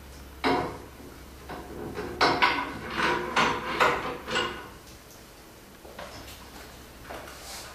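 Aluminium CNC gantry rail and its carriage being handled: a sharp knock about half a second in, then a run of metal clanks and rattles, with a few fainter knocks near the end.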